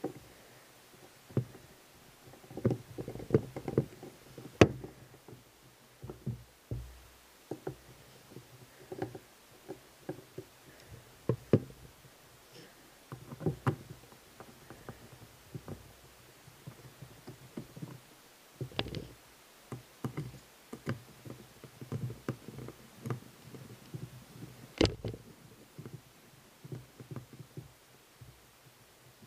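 Small screwdriver setting and turning the screws that close an airsoft gun's metal gearbox shell: light metal clicks and taps scattered irregularly, a few sharper knocks among them.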